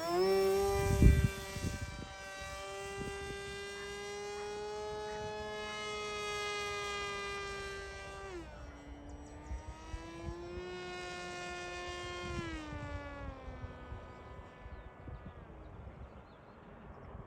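Volantex Ranger 1600 RC plane's electric motor and propeller whining in flight. The pitch holds high, drops suddenly about eight seconds in, rises again, then falls away as the throttle is cut near the end. Wind buffets the microphone in the first couple of seconds.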